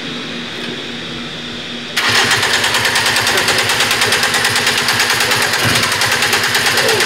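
Engine noise that comes in abruptly about two seconds in, over a steady hum, and then keeps running loud with a fast, even pulse.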